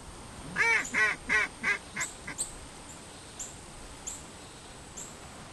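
Mallard duck quacking: a quick run of about six quacks, roughly three a second, the later ones shorter and quieter.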